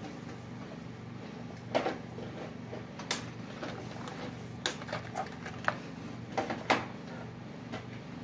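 Scattered light metal clicks and knocks, about seven or eight spread over several seconds, from hand work on a car's rear brake caliper and its brake line fitting.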